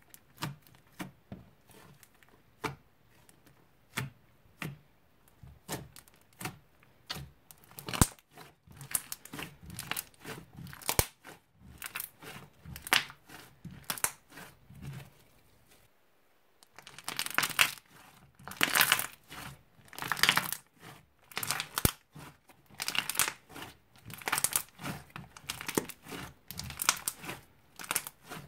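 Thick slime being poked, pressed and squeezed by hand, giving sharp clicking pops and crackles as trapped air bursts. The pops come singly and sparsely at first, then, after a short pause about halfway, in denser and louder crackling runs.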